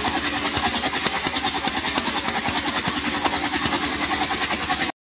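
Engine of a wood-cutting circular saw machine running steadily with an even, rapid pulsing, cutting off abruptly near the end.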